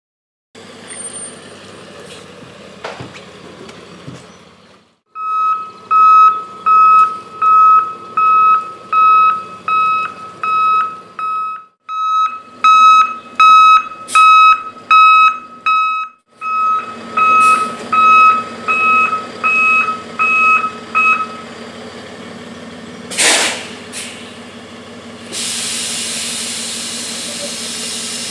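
Delivery truck reversing: its backup alarm beeps about once a second over the engine running. Near the end come a sharp burst of air, like an air brake, then a steady hiss.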